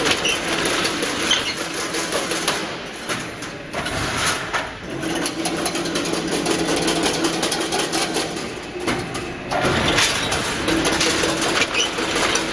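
Automatic single-wire chain link fence machine running, weaving wire mesh: a steady hum under a dense, rapid clatter of metal parts.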